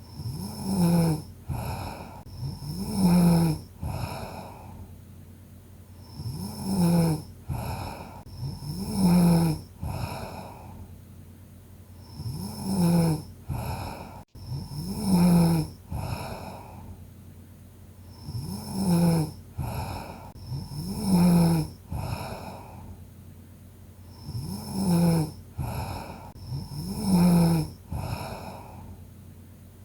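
A sleeping person snoring steadily: loud snores come in pairs about two seconds apart, and the pairs repeat about every six seconds.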